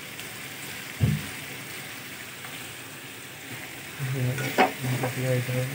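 Sliced onions sizzling as they fry in oil in an aluminium kadai, with a single knock about a second in.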